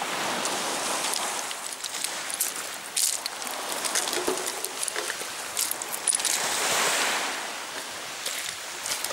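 Footsteps crunching over a pebble beach, loose stones clicking and clinking underfoot, over a steady rushing noise that swells near the start and again later.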